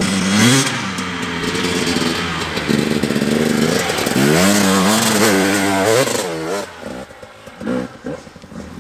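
Dirt bike engine revving as it rides across the dirt, its pitch climbing and dropping several times through the throttle and gear changes. It fades out after about six seconds, leaving quieter rumble and a few knocks.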